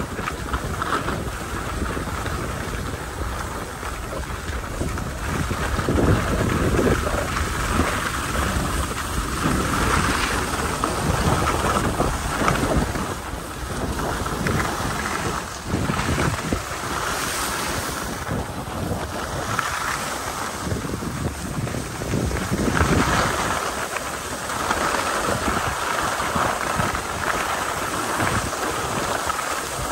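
Wind buffeting the microphone over a steady rushing noise that swells and eases.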